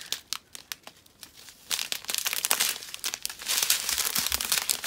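Small clear plastic bags of diamond-painting drills crinkling and rustling as they are handled and sorted. A few light crackles come first, then steady crinkling from about two seconds in.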